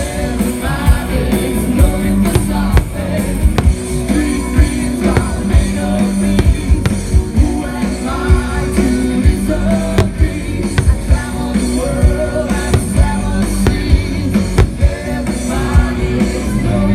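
Rock music with a singing voice, cut through by many irregular sharp bangs.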